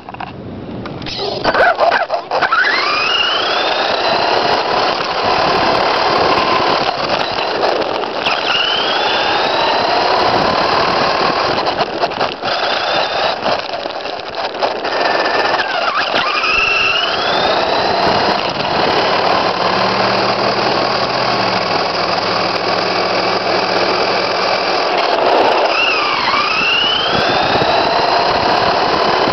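XTM X-Cellerator electric RC monster truck's motor and drivetrain whining, heard from a camera on the truck itself, with a steady rattle and road noise. The whine rises in pitch about four times as the truck speeds up, dipping briefly before the last two.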